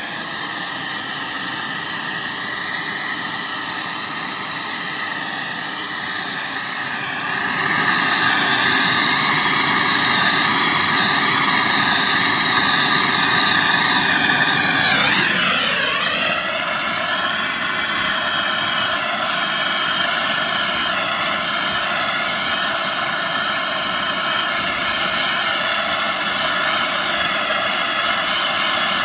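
Plumber's torch burning steadily, its flame played on a copper pipe to burn off a sticker and its residue. The steady hiss gets louder about seven seconds in and changes briefly around fifteen seconds.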